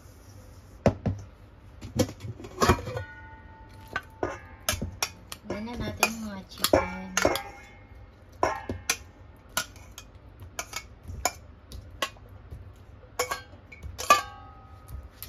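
Stainless steel mixing bowls clinking and knocking against each other as chicken wings are tipped from one into a bowl of flour. The knocks are sharp and irregular, a couple of dozen in all, and several leave a short metallic ring.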